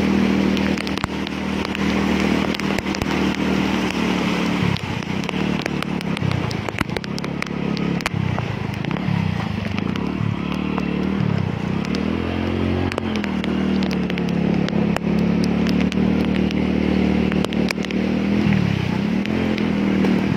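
A small vehicle engine running through floodwater, its pitch dipping and rising several times as the throttle is eased and opened. Under it is a steady hiss of heavy rain and splashing water, with many small clicks.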